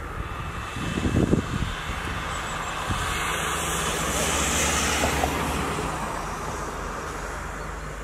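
Strong wind rushing and gusting, with a burst of buffeting on the microphone about a second in, over a steady low hum.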